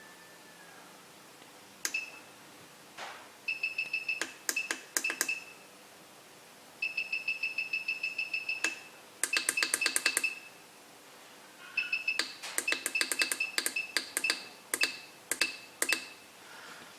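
Duratech TS1390 soldering station beeping as its temperature buttons are pressed: short, high electronic beeps all at the same pitch, in quick runs of several a second with pauses between, along with a few sharp button clicks. This is the set temperature being stepped down.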